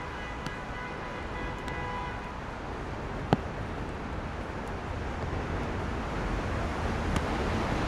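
Steady noise of city traffic on rain-wet roads. A steady pitched tone sounds for about the first two seconds, and there is a single sharp knock about three seconds in. The noise grows louder near the end.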